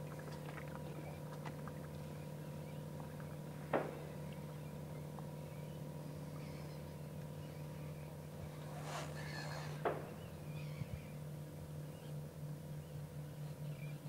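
A boat's engine idling, a low steady hum with a couple of short knocks, one about four seconds in and another near ten seconds.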